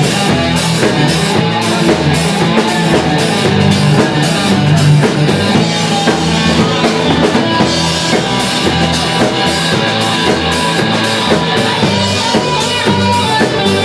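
Live rock band playing an instrumental passage between sung verses: drum kit keeping a steady beat under guitar.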